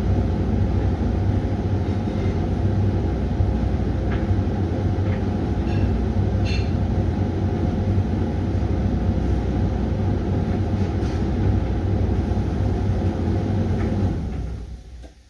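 Hoover washing machine running a Refresh cycle: a steady low rumble and hum from the motor and turning drum, with a few faint clicks. Near the end it dies away quickly to near silence.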